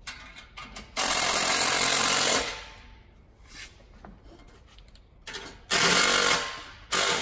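Handheld cordless power tool run in three bursts under a car's exhaust: a long one of about a second and a half, a shorter one about six seconds in, and a brief one near the end.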